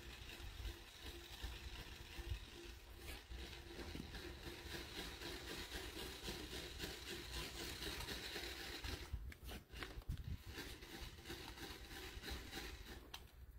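Faint, steady rattling and scraping of a rope-making machine twisting strands of sisal yarn. The yarn is still building up twist tension before the rope is laid.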